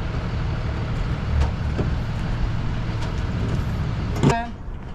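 Steady low rumble like a running vehicle engine. About four seconds in, a short loud pitched sound rises, and then the rumble drops away.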